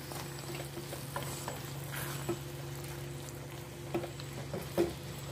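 Spoon stirring thick chicken masala in a metal pan, with a few short taps and scrapes against the pan over a faint sizzle of frying. A steady low hum runs underneath.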